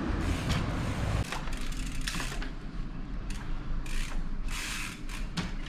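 Trial bike's rear freewheel hub ratcheting in irregular bursts as the rider rolls and pedals on the back wheel, after a second or so of street traffic rumble that cuts off suddenly.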